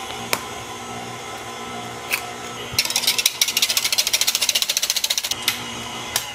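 KitchenAid stand mixer motor running steadily, mixing dry flour and matcha powder. A sharp egg crack comes about two seconds in, then about two and a half seconds of rapid clicking, some ten a second, as a hand whisk beats eggs and milk in a plastic jug.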